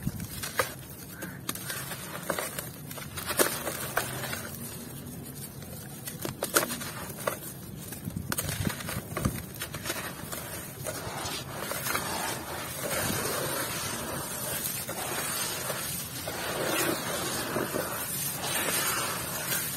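Hands crumbling lumps of grainy red dirt, with sharp crackles and grains pattering onto the wet tub bottom. About halfway through it turns to a steadier wet squishing and sloshing as the dirt is kneaded into muddy water.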